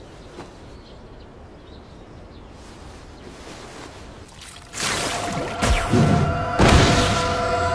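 Anime soundtrack: faint background for most of five seconds, then a sudden swish and thuds of action sound effects under a tense sustained music chord.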